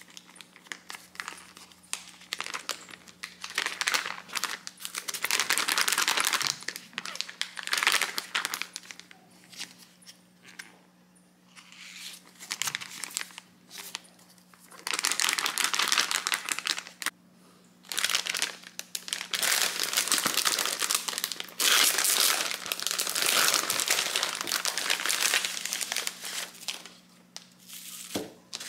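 Plastic instant onigiri pouch crinkling as it is sealed and shaken hard by hand to mix the dried rice with hot water. The crinkling comes in several long bursts separated by short pauses.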